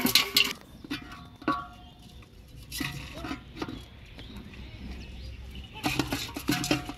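Water splashing and sloshing in a metal pot as freshly caught fish are handled and flap in it, with knocks against the pot's side. It comes in irregular short bursts, the busiest at the very start and again about six seconds in.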